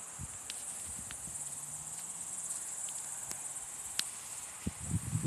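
Crickets chirring steadily in a high, even drone, with a few low thumps near the end.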